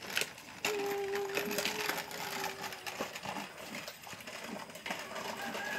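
Plastic toddler tricycle rolling over rough concrete, its hard plastic wheels giving a continuous irregular rattle and crackle. A steady hum-like tone sounds for about two seconds, starting about a second in.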